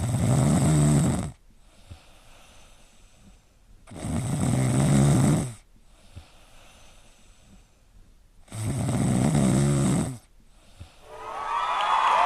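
A sleeping pet snoring: three long, even snores about four seconds apart, each lasting a second or more. Near the end, cheering and music start to swell in.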